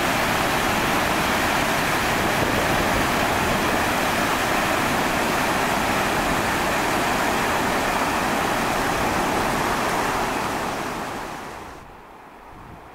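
Waterfall on the Yellowstone River heard close at its brink: a loud, steady rush of falling and churning water. About ten and a half seconds in it fades down to a much fainter background.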